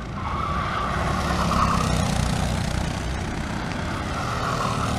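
Racing kart engines running as two karts take a bend on a circuit. The engine note is strongest in the first two seconds and again near the end.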